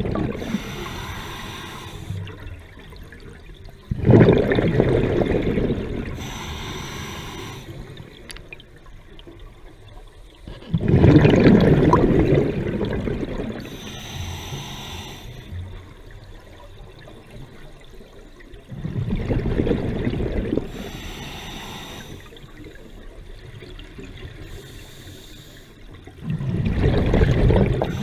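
A scuba diver's open-circuit regulator breathing heard underwater: a rushing burst of exhaled bubbles about every 7 to 8 seconds, four times, each followed by the fainter hiss of the regulator on the next inhale.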